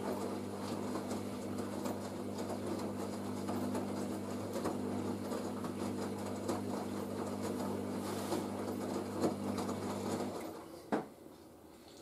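Hoover SIX AAA160 Whisper 1600 washing machine turning its drum to tumble the load during a rinse, a steady motor hum that stops about ten seconds in as the drum comes to rest, followed by a single click.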